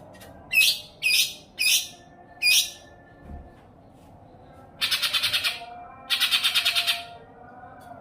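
Songbird calling: four sharp, high chirps that fall in pitch in the first few seconds, then two fast rattling trills of just under a second each, over fainter whistling from other birds.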